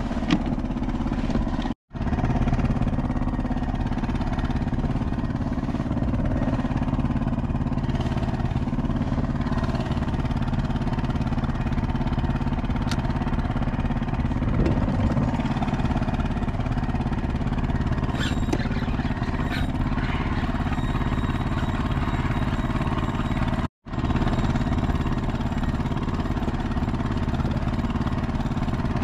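A steady, low engine-like drone that cuts out briefly twice, about two seconds in and near the end.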